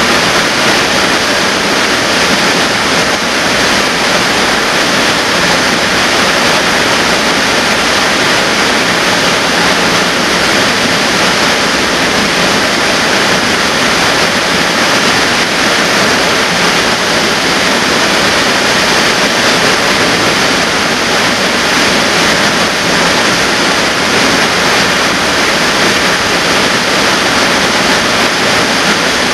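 Waterfall pouring down a rock gorge into a pool: a loud, steady rush of water.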